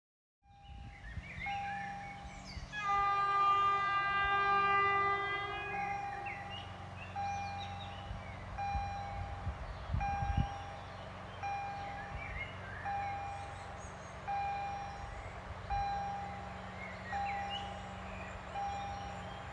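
A train horn sounds once, held for about three seconds, over the low rumble of a slow-moving train. Throughout, a level-crossing warning signal beeps about once every 0.7 seconds.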